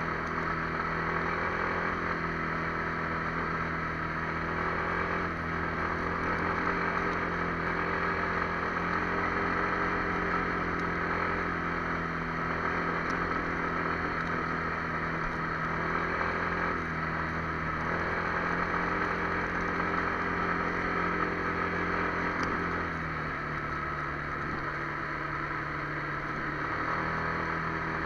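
Kymco MXU 300 ATV engine running steadily under way, with wind and road noise. The engine note drops slightly about three-quarters of the way in, then picks up again near the end.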